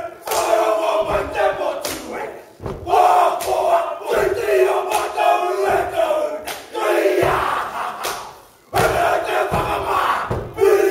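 A group of men shouting a haka-style war chant in unison, phrase after phrase with short breaks between them, and a few heavy thuds of feet stamping on the stage.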